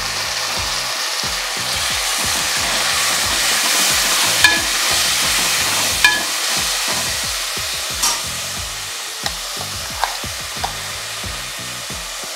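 Chopped tomatoes sizzling in hot oil with fried onions in a metal pot as they are stirred. The stirring spoon clinks sharply against the pot several times.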